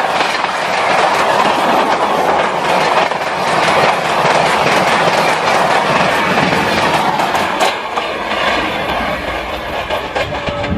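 A train passing at speed, its wheels clattering steadily over the rail joints.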